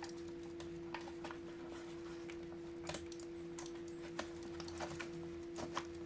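Scattered light clicks and taps from handling a multimeter and its test leads, over a faint steady hum.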